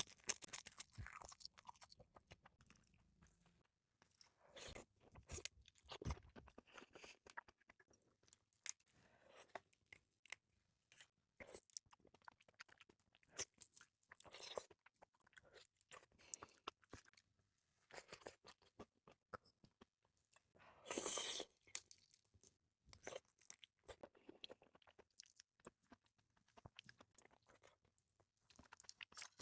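Close-miked chewing and wet mouth sounds of someone eating red shrimp sashimi with salmon roe in mayonnaise sauce: soft, irregular clicks and smacks, with one louder noisy burst of about a second a little past the two-thirds mark.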